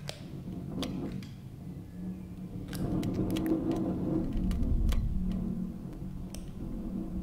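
Live-mixed, manipulated ambient sound from a house: a low steady hum with scattered sharp clicks and ticks. A deeper rumble swells through the middle and eases off near the end.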